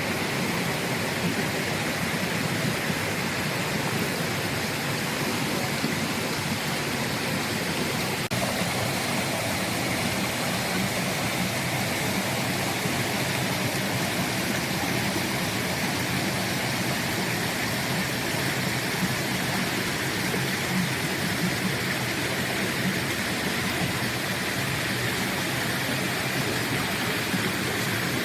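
Steady rushing of flowing water from a rainforest stream, an even hiss that holds without pause.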